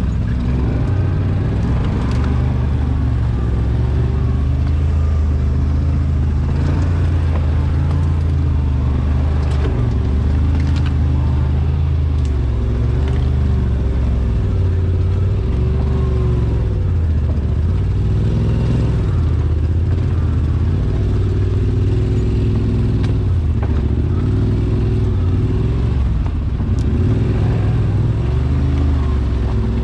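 ATV engine running at low revs while crawling along a rough, muddy trail, its pitch rising and falling with the throttle. A few sharp clicks and rattles are heard now and then.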